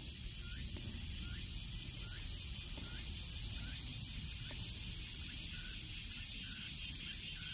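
Steady high-pitched chirring of insects in the grass, with faint short chirps recurring about every half second to second over a low rumble.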